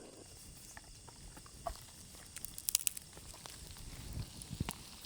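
Wood campfire crackling: scattered small snaps and pops, a quick cluster of them about halfway through, over a faint hiss.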